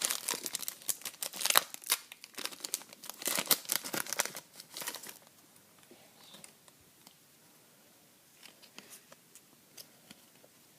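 Trading-card pack wrapper crinkling and tearing as it is opened, dense crackling for about five seconds, then only a few faint ticks and rustles.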